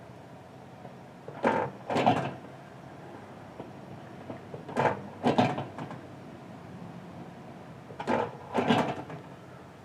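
Microwave oven running with a Juul e-cigarette inside, a steady low hum. Pairs of short noisy bursts break in about every three seconds.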